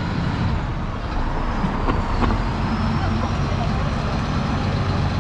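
City street traffic: a vehicle engine running close by with a steady low hum under the general road noise.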